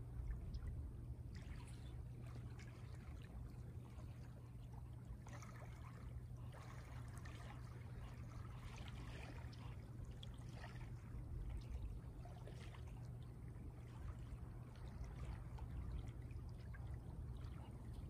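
Small waves lapping softly at the shoreline, with light trickling and splashing that picks up for a few seconds in the middle, over a low steady rumble.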